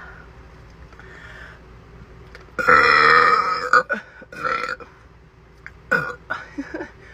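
A woman burping: one long, deep burp lasting about a second, starting a little under three seconds in, followed by a few shorter, quieter sounds.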